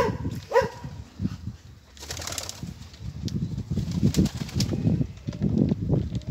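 A flock of Old Polish (staropolski) and Rzeszów fancy pigeons cooing in low, repeated throaty pulses that grow busier in the second half, with a brief rustle of wings about two seconds in.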